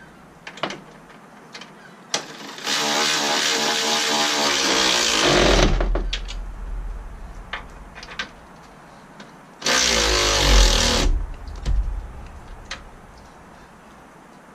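Cordless impact tool running the 10 mm bolt down on the hood-strut bracket in two bursts, a longer one and then a short one. Its motor whines and then hammers as the bolt seats. Light clicks of the socket and parts are heard between the bursts.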